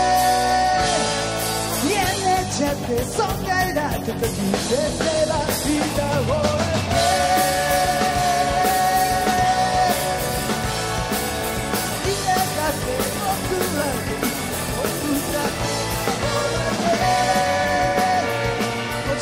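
A live band plays an upbeat rock song with drums and electric guitars, and a lead singer sings through a handheld microphone.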